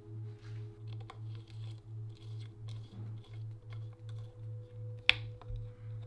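Soft background music with a pulsing low beat and held tones, over small clicks and taps of a bike brake lever and its small parts being handled, the loudest a sharp click about five seconds in.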